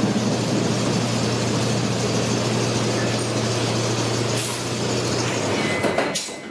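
A small zoo train's engine running steadily with a constant low hum, over a wash of mechanical noise. The hum stops about five seconds in.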